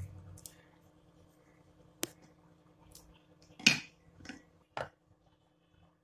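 Scissors and small kitchen items handled on a wooden chopping board. A sharp click about two seconds in, then a louder clatter a second and a half later, followed by two softer knocks.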